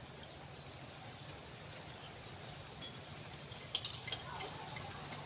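Metal spoons clinking and scraping against ceramic plates during a meal, quiet at first, then a cluster of sharp clinks about three to four seconds in, over a low steady hum.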